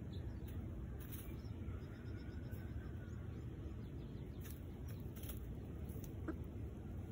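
Hens making faint, soft clucks and a drawn-out low call, with a few light clicks, over a steady low rumble.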